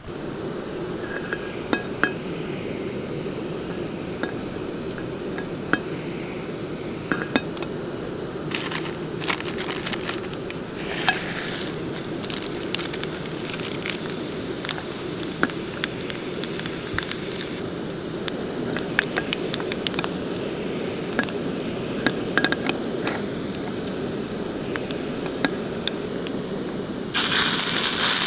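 Camping gas stove burner running with a steady hum under light clinks and taps of utensils on a steel frying pan. About a second before the end, a loud sizzle starts as paste squeezed from a packet hits the hot oil.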